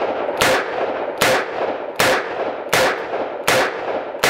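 Taurus 627 Tracker revolver with a 4-inch ported barrel firing .357 Magnum jacketed soft points double action: a rapid, evenly spaced string of loud shots, about one every three-quarters of a second, each followed by a short echo.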